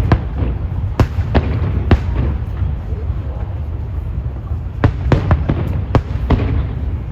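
Aerial fireworks shells bursting overhead: a series of sharp bangs, a cluster of four in the first two seconds and a quicker run of about six between five and six and a half seconds in, over a steady low rumble.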